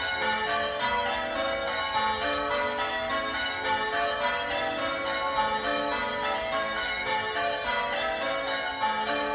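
A ring of six Gillett & Johnston church bells (cast 1928, tenor about 9½ cwt in A) being rung in steady sequence, one strike after another with the tones overlapping. The treble is the most prominent bell.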